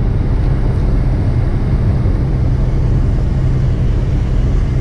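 Tow truck's diesel engine running steadily on the road, heard from inside the cab as a constant low drone with road noise.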